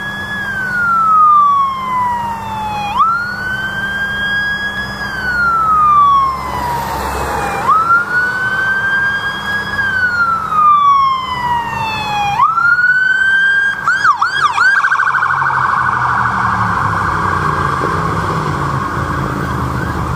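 Police car's electronic siren on a slow wail, rising quickly and falling slowly about every four to five seconds. About two-thirds of the way through it gives a few quick yelps and switches to a rapid warbling tone that holds, over a low rumble of traffic.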